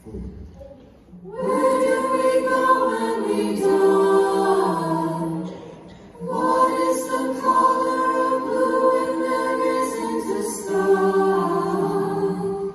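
Mixed-voice a cappella group singing amplified sustained chords, with no instruments. The singing comes in about a second and a half in, with a short break just before the middle before a second long phrase.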